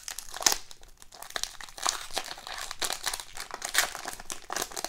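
Foil wrapper of a 2019-20 SP Authentic hockey card pack being torn open and peeled back by hand: irregular crinkling and crackling of the foil.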